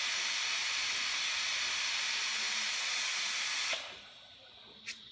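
Air-operated Mighty Vac vacuum pump running on compressed air with a steady loud hiss, drawing vacuum on a sealed jar to suck the air out of hydraulic lifters and prime them with oil; the hiss cuts off abruptly about three and a half seconds in, followed by a faint click.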